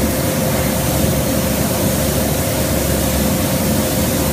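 Paint spray booth ventilation running steadily: a loud, even rush of moving air with a steady hum underneath.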